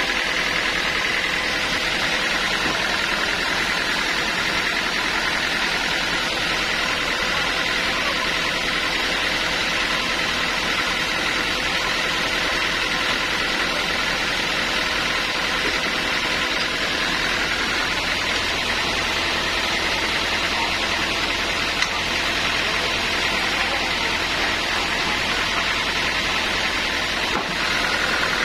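Sawmill machinery running steadily, with a constant high whine over a broad mechanical noise.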